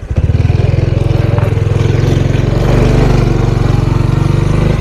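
Single-cylinder diesel engine of a Thai two-wheel farm tractor ('täk täk') running under way, an even thudding pulse of about eight beats a second that grows louder just after the start and then holds steady.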